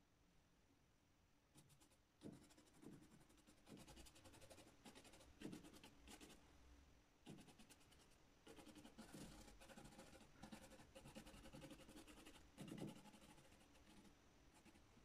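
Faint, quick scratching of a paintbrush loaded with oil paint being stroked and dabbed across a painting board, in several runs of short strokes with brief pauses. It starts about two seconds in and stops a little before the end.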